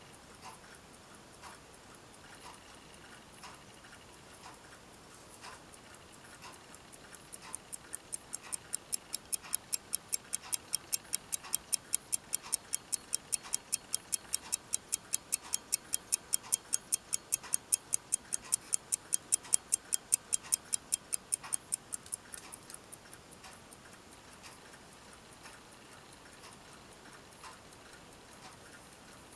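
A 1918 Illinois Watch Company pocket watch ticking steadily at about five ticks a second. The ticks are faint at first, grow loud and crisp about seven seconds in, and fall back to faint after about twenty-two seconds.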